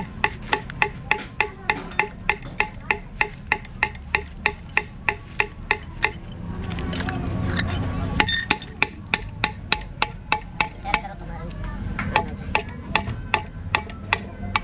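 Rapid, even hammer blows on metal, about three to four a second, each with a short ring. They pause for about two seconds in the middle while a low rumble comes up, then resume and grow irregular near the end.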